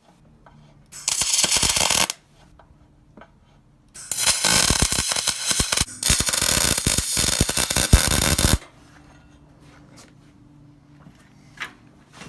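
Welding arc crackling in two runs: a short burst of about a second, a second in, then a longer steady crackle of about four and a half seconds from about four seconds in, as parts of the mini bike frame are welded together.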